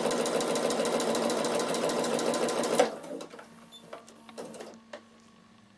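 Bernina sewing machine with a ruffler attachment stitching at a steady speed, gathering fabric into ruffles, then stopping sharply about three seconds in; a few faint clicks follow.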